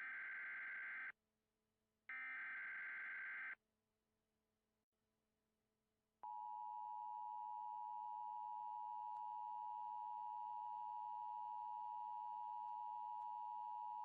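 Emergency Alert System alert tones. First two buzzy, warbling SAME header data bursts, each about a second and a half long, from the second to the third. Then, after a few seconds' pause, the steady two-tone EAS attention signal (853 and 960 Hz together) holds for about eight seconds and cuts off abruptly.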